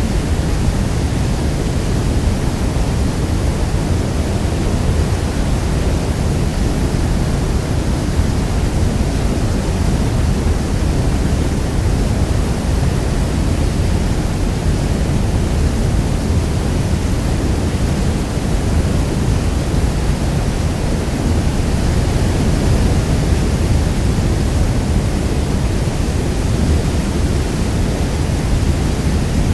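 Steady, deep roar of Niagara Falls' water crashing down, an unbroken rush of noise weighted toward the low end.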